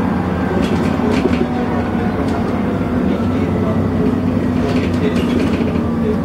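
ADL Enviro400 double-decker bus heard from inside the cabin, driven hard at speed: a loud, steady engine and drivetrain drone with road noise, and a few short clicks and rattles from the interior.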